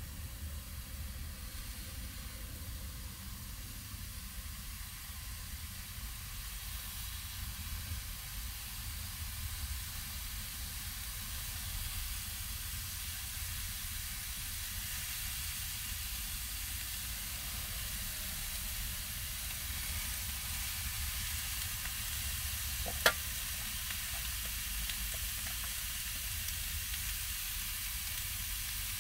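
Steak meat sizzling as it fries in a pan on a portable camp stove, the sizzle steady and growing slightly louder; one sharp knock about 23 seconds in.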